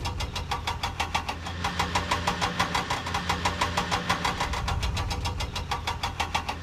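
Vehicle engine running at a steady idle, chugging evenly at about seven or eight beats a second over a low hum.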